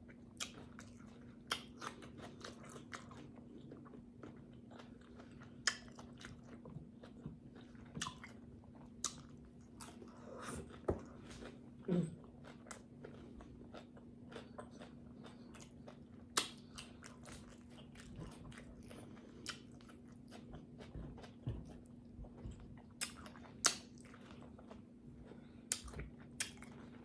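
Close-miked chewing and biting into tacos, with scattered crunches and wet mouth clicks at irregular intervals over a steady low hum.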